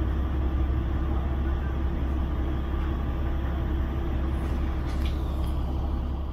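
Interior running noise of a diesel railcar: a steady low engine hum with rumbling noise from the running gear as the train creeps along and slows nearly to a stop.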